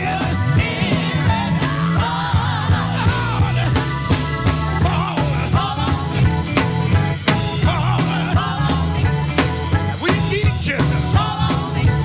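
Live soul band: a male lead vocalist sings into a handheld microphone over electric guitar, a steady bass line and a drum kit.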